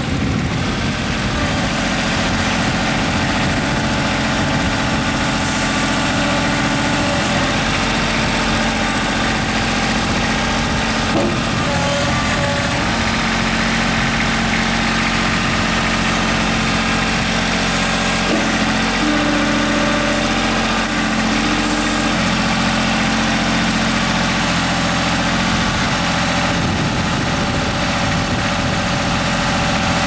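Kubota B21 compact tractor-loader-backhoe's three-cylinder diesel engine running steadily, its note shifting briefly a few times as the loader is worked.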